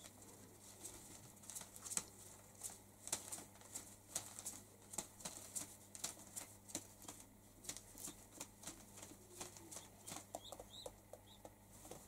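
Rock pigeons pecking and stepping about on the floor: faint, irregular small clicks and taps, a few a second.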